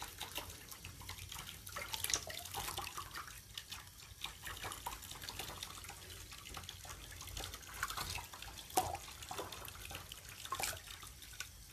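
Water dripping and splashing in a sink as a rabbit is washed by hand: small irregular splashes and drips, with a couple of louder splashes near the end.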